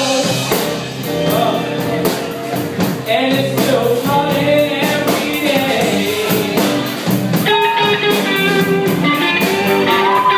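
Live rock band with a male singer, electric guitars and a drum kit. About seven seconds in the singing gives way to a lead electric guitar playing held notes over the drums.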